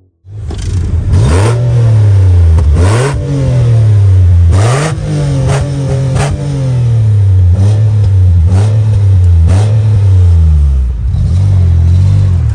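Mitsubishi Pajero's 3.8-litre V6 revved repeatedly at a standstill through a new stainless-steel exhaust built to sound close to stock: about eight throttle blips, the engine note rising and falling each time, the first few long and the later ones short and sharp, then settling to a steady idle near the end.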